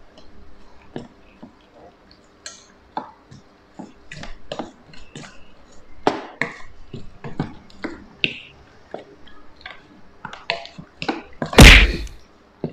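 Wooden spoon stirring star apple pieces in a stainless steel bowl, tapping and scraping the metal with irregular light clicks. Near the end there is one loud clunk.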